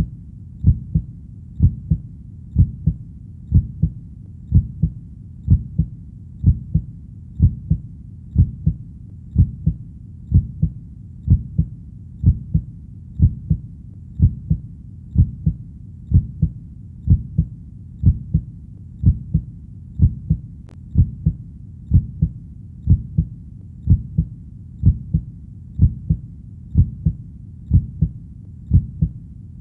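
A heartbeat thudding at a steady slow pace, about one beat a second, each beat a low double thud (lub-dub).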